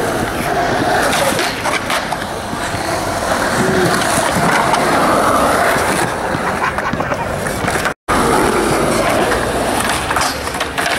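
Skateboard wheels rolling on smooth concrete, with a few sharp clicks from the board. The sound drops out for a moment about eight seconds in.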